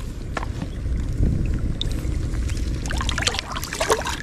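Water sloshing and splashing over a steady low rumble, the splashing busier near the end.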